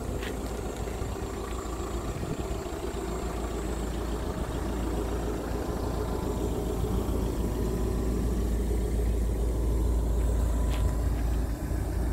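Hyundai Robex 140LC-7A tracked excavator's diesel engine idling steadily, growing gradually louder.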